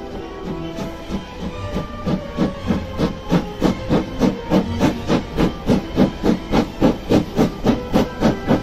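Steam locomotive exhaust chuffing in a steady rhythm of about three beats a second. It starts under a hiss and becomes louder and more distinct from about two seconds in.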